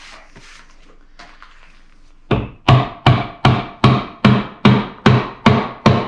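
A hammer striking the cast housing of a Chevy truck's transfer case about ten times in quick, even succession, roughly two and a half blows a second, starting about two seconds in. The blows work the bolted case halves loose so the case can be split apart.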